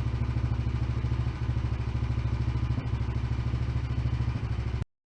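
Predator 301cc single-cylinder engine on a mini bike running steadily at idle, with an even low putter. The sound cuts off suddenly near the end.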